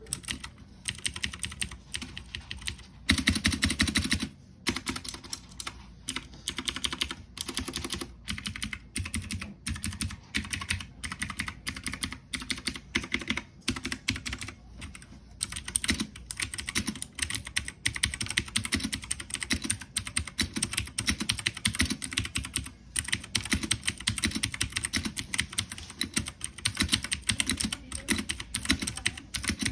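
Typing on a MageGee MK-Box 60% mechanical keyboard: a steady, irregular run of key clicks, with a denser, louder flurry about three to four seconds in.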